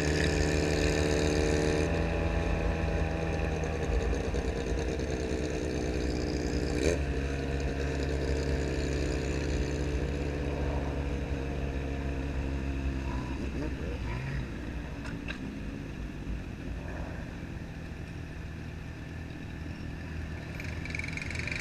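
Yamaha XJ6 N inline-four engine through a 4-into-1 exhaust, running steadily at low revs while riding slowly, its pitch easing a little. About halfway through the engine note drops back and gets quieter.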